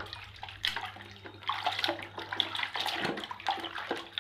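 Water splashing and sloshing as a muddy toy airplane is washed by hand, with irregular small splashes throughout.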